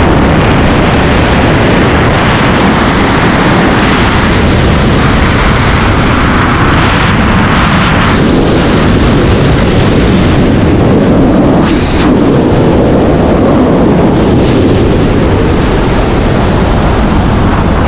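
Strong airflow buffeting a body-mounted camera's microphone during wingsuit flight: a loud, steady rush of wind noise that never lets up.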